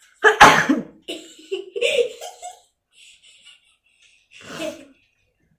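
A woman sneezes once, loud and sudden, a sneeze brought on by tickling the inside of her nostril with a thin rolled strip of paper. She follows it with a run of short giggling laughs, and there is a shorter breathy burst near the end.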